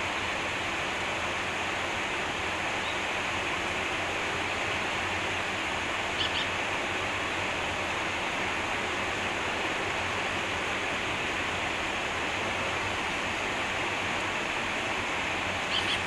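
Stream water rushing steadily over stones, with a grey wagtail's short, sharp high double call about six seconds in and again near the end.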